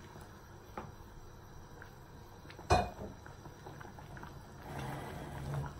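Red silicone spatula stirring thin chicken and chana daal in a nonstick saucepan: soft wet sloshing and light clicks, with one sharp knock about halfway through. The stirring gets louder near the end.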